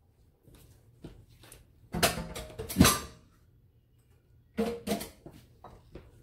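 A few knocks and clatters of kitchenware being handled on the stovetop, a cluster about two to three seconds in with one sharp, loudest knock, and another short clatter near the end.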